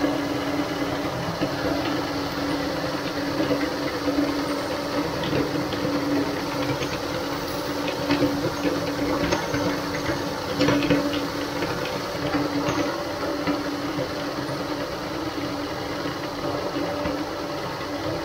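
Motor-driven cast-aluminium meat grinder running with a steady hum while it crushes plastic toy figures, scattered cracks and crunches of the plastic breaking up, mostly in the middle.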